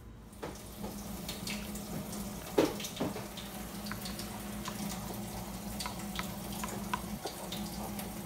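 Red plastic spoon stirring baby oatmeal cereal in a glass bowl, with short clicks and scrapes against the glass, over a steady hiss and hum in the background.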